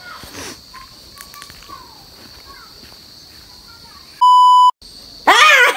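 Quiet outdoor ambience with a few faint bird chirps and a steady high whine, broken about four seconds in by a loud half-second electronic beep that starts and stops abruptly. A woman's laughing speech begins just before the end.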